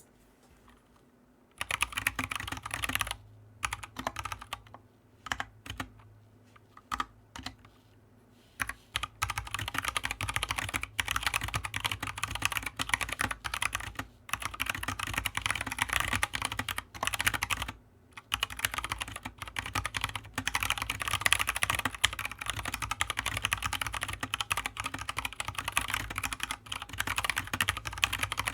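Typing on an Anne Pro 2 60% mechanical keyboard with Kailh Box Brown tactile switches: a rapid clatter of keystrokes. It starts about a second and a half in, comes in short bursts with pauses at first, then runs fast and nearly continuous from about nine seconds on.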